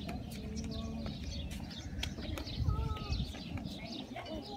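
Small birds chirping in many quick, short notes, over a low rumble. About three seconds in there is a brief pitched call lower down.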